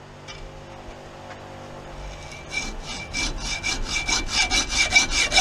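Hacksaw cutting through a steel bolt clamped in a bench vise to saw its head off. Fast, even rasping strokes start about halfway in, with a thin high ring from the blade under them.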